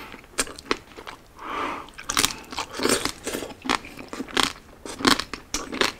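Close-miked chewing of crispy roast pork belly (liempo), with irregular sharp crunches of the crackling skin.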